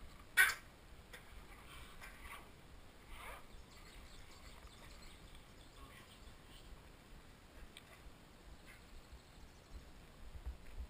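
Faint outdoor background: a steady low wind rumble with a few faint chirps, and one sharp click just after the start.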